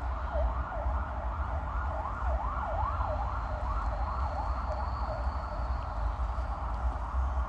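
Distant emergency-vehicle siren in a fast yelp, sweeping up and down about three times a second and fading near the end, over a steady low rumble.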